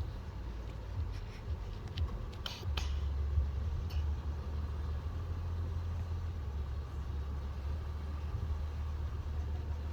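Strong wind rumbling against the microphone, getting heavier a few seconds in, with a few brief rustles or clicks.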